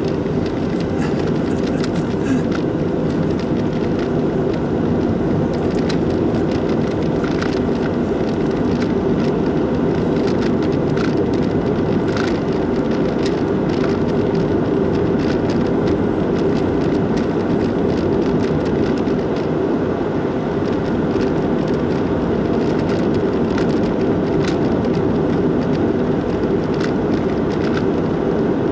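Car driving at a steady speed, heard from inside the cabin: a continuous low rumble of tyres on the road and the engine, with faint clicks now and then.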